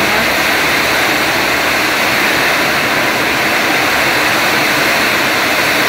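Heavy rain beating on a corrugated sheet-metal roof, heard from underneath: a loud, steady, even noise.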